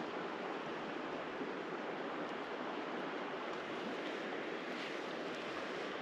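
Creek water running steadily, an even rushing sound.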